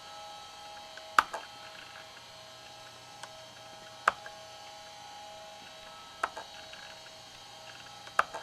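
Four sharp, well-spaced clicks of laptop pointer buttons, with a steady electrical hum and whine from the machine underneath.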